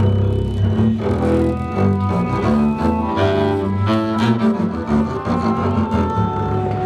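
Orchestral double basses bowing a passage of short, low notes that change in quick succession.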